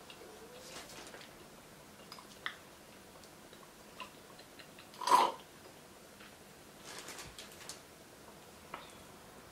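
Faint small clicks and rustles of handling, then one short, loud slurp about five seconds in as a drink is sipped through a plastic straw from a wine glass.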